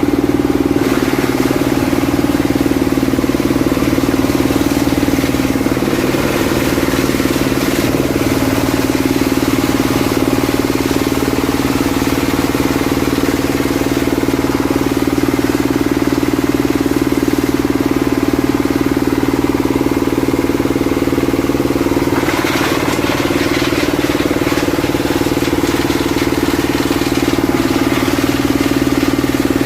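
Waste-sorting machine driven by a 30 HP diesel engine, running steadily, with a short rise in higher-pitched noise about 22 seconds in.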